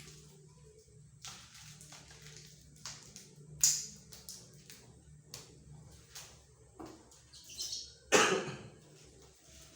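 Irregular clicks and knocks of kitchen items being handled, with two louder knocks about three and a half and eight seconds in.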